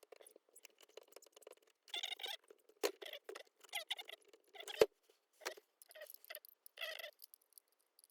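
Short, irregular scratchy scrubbing strokes on the metal parts of an old hand plane being cleaned, with one sharp knock about five seconds in.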